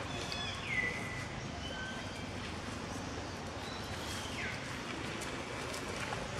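A few short, high-pitched animal calls over a steady outdoor background hiss. The loudest, about a second in, drops sharply in pitch and then holds briefly. Fainter calls follow, and another falling call comes near the middle.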